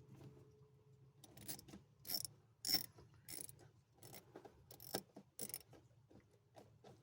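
An uneven run of sharp metallic clicks and rattles from hand tools and parts being worked on the throttle body in the engine bay. The clicks start about a second in and stop shortly before the end.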